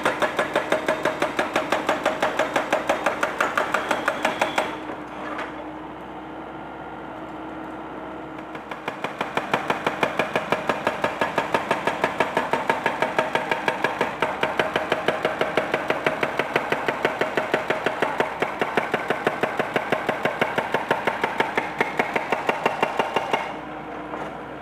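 Excavator-mounted hydraulic breaker hammering concrete in a rapid, steady run of blows, about nine a second, over the excavator's running engine. The hammering pauses for about four seconds some five seconds in, and briefly again near the end.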